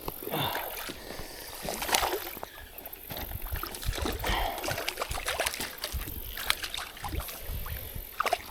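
Water sloshing and splashing, with scattered sharp clicks and low knocks.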